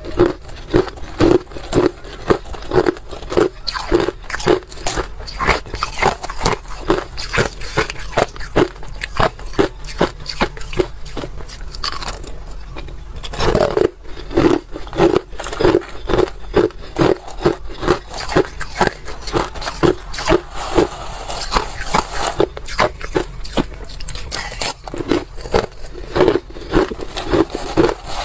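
Crushed ice being chewed and crunched between the teeth, close to a clip-on microphone: a steady run of crisp crunches, about two or three a second, with a brief lull about twelve seconds in.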